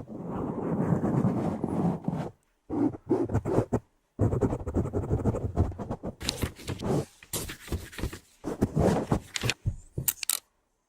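Close-miked ASMR trigger sounds: rough rubbing and scraping right against the microphone, steady for about two seconds, then coming in irregular strokes with brief silent gaps and some sharper clicks later on.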